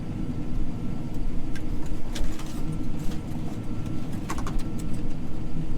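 Steady low engine rumble of a running farm vehicle, heard from inside its cab, with a few faint clicks.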